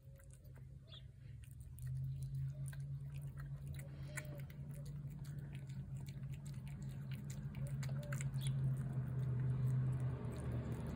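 Cat chewing wet flaked fish food from a plate, a run of small wet clicks that grows louder and busier after about two seconds. A steady low hum runs underneath.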